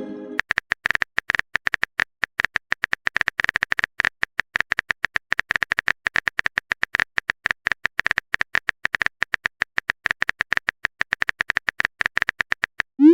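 Rapid, steady clicking of a phone keyboard typing sound effect, several short sharp ticks a second, as a text message is typed out.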